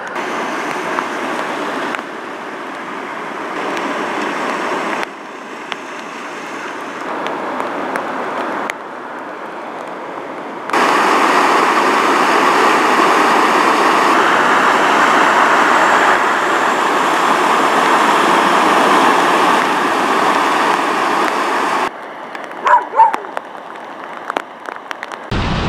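Vehicles driving through flooded streets: a steady rush of tyres ploughing through muddy floodwater and throwing spray, in several short cuts. It is loudest for about ten seconds in the middle, as a car pushes through deep water. Near the end it goes quieter, with two short, sharp calls.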